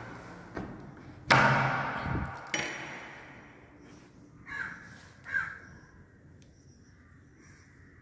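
A wooden door being opened. It knocks and clunks several times, loudest about a second in. Then a crow caws twice, a few seconds later.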